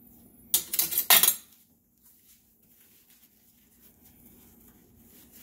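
Metal spoon clinking and scraping against the pan several times in quick succession about half a second in, as sauce is scooped from the chicken adobo.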